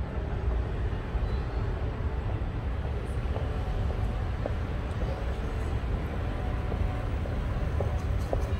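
Steady low rumble of city street traffic, with a few short light clicks near the end.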